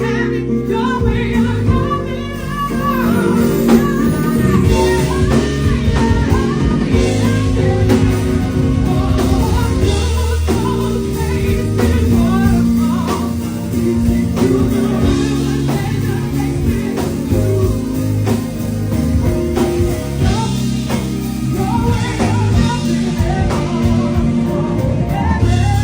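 Live band music with a singer's voice over a bass line, drums and guitar.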